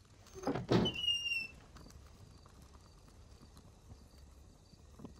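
A short burst of rustling and knocking about half a second in, ending in a brief high-pitched squeak.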